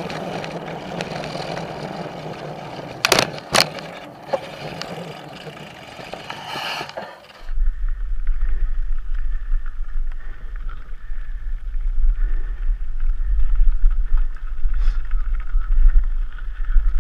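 Mountain bike rolling along a wooden boardwalk: steady tyre and rattle noise with two sharp knocks about three seconds in. About halfway through it cuts to a deep, steady wind rumble on the helmet camera's microphone as the bike rolls over gravel.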